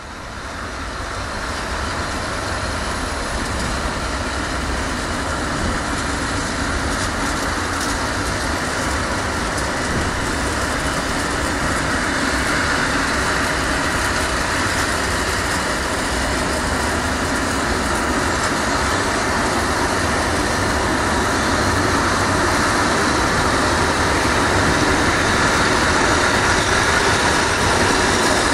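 A long freight train of covered hopper wagons rolling past: a steady rumble and rattle of steel wheels on the rails. It fades in at the start and grows slowly louder.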